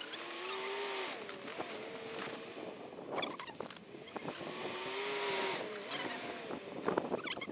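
Nissan Patrol TB48 straight-six petrol engine revving twice as the SUV rocks back and forth in deep snow, each rise in pitch carrying a hiss of spinning tyres and spraying snow. A short clatter comes about three seconds in and again near the end.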